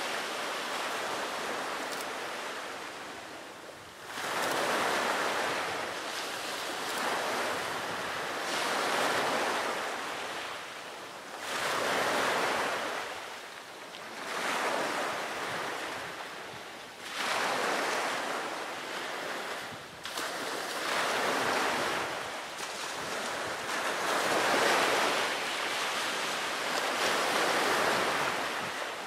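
Sea waves washing ashore, a swell of surf noise rising and falling every two to three seconds.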